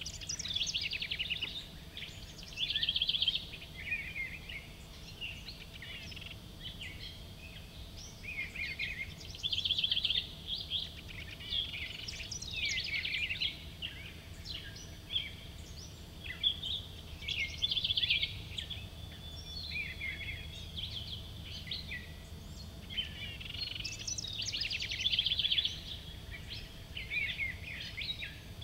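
Several songbirds singing, short trilled and warbling phrases overlapping one another every second or so, over a faint steady low rumble.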